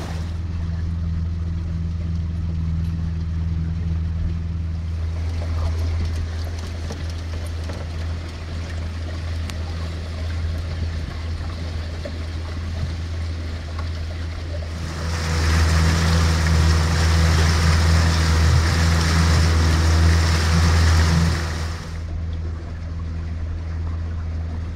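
Boat motor running steadily under way, a constant low hum. For several seconds in the middle a louder rushing noise rises over it and then drops away.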